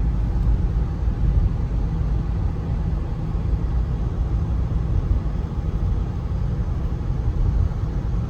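Steady road noise of a moving car heard from inside the cabin: a constant low rumble of tyres and engine.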